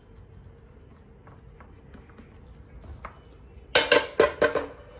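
Round aluminium baking tray set down onto a stack of other metal trays: four quick metal clanks with a short ring, all within under a second, about three and a half seconds in.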